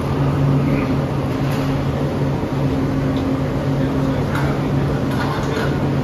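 Bell-foundry melting furnace and its blower running with a steady, loud low hum, with a few faint metallic clinks in the second half.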